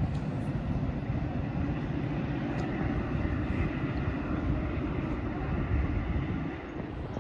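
Metra commuter train, hauled by a diesel locomotive, running with a steady low rumble.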